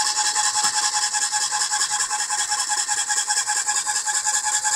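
Graco Ultra 395 electric airless paint sprayer running, its pump pushing paint through the hose to prime the line. A steady high hiss with a faint steady whine and rapid, even pulsing.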